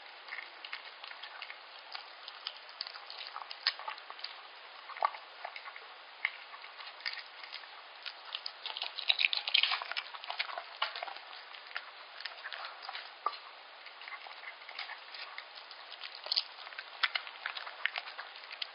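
Yorkshire terrier eating soft raw liver pâté from a stainless steel bowl: a steady run of wet chewing, licking and smacking clicks, busiest about halfway through.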